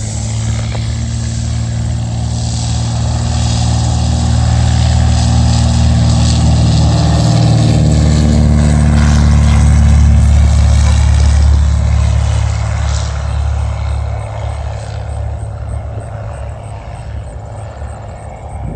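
Single-engine Cessna's piston engine and propeller droning as it passes by. It builds to its loudest about two-thirds of the way through, its pitch dropping slightly, then fades.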